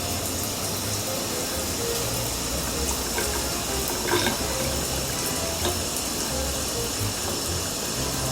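Steady running water, like a tap running into a sink, with soft background music underneath.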